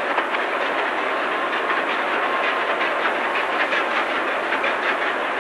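Large marine diesel engine running: a steady, dense mechanical clatter of rapid ticks and knocks.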